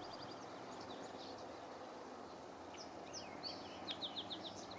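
Small songbirds chirping over a steady background hiss, with a quick run of about six repeated notes about three and a half seconds in.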